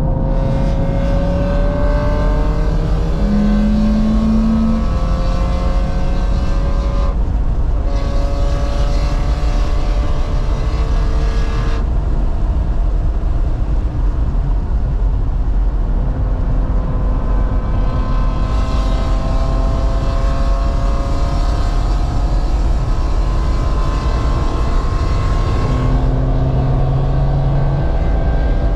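Twin-turbo straight-six of a 2018 BMW M3 Competition, heard from inside the cabin at track pace. The engine climbs in pitch through several hard pulls, and the sound drops back at lifts or shifts about seven and twelve seconds in. It pulls again from about eighteen seconds, over steady road noise.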